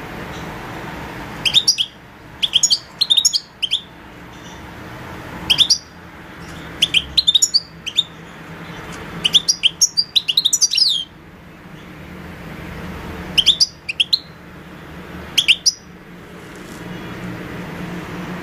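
European goldfinch calling in short twittering bursts of quick, high chirps, about seven bursts with brief gaps between them, over a steady low background hum.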